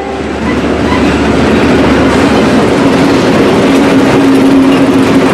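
Freight train rolling past close by, the last of its diesel locomotives and then freight cars going by: a loud, steady rumble of wheels on rail with a steady hum underneath.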